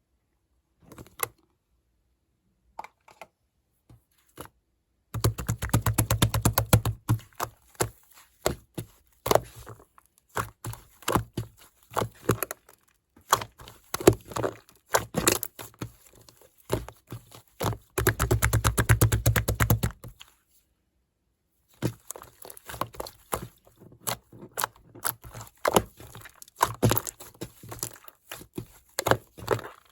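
Clay-textured slime being pressed, poked and stretched by hand, giving sharp clicks and pops, with two spells of fast, dense crackling clicks, about five seconds in and again near eighteen seconds.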